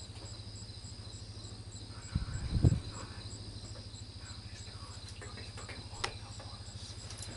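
Night insects calling steadily: a constant high buzz with a regular high tick about three times a second, over a low hum. About two seconds in comes a louder, low rumbling thump lasting about half a second, and a faint click near the end.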